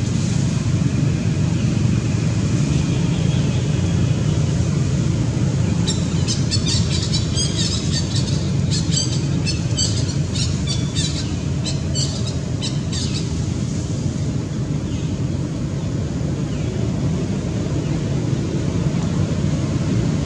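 A bird calls in a quick series of short, high chirps for about seven seconds, starting about six seconds in, over a steady low rumble.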